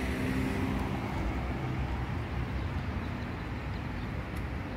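Steady rumble of city street traffic, cars running along the avenue, with a faint engine hum in the first second or so.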